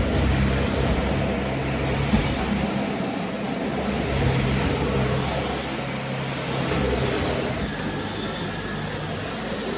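Vacuum cleaner running steadily: a motor hum under a constant rush of air.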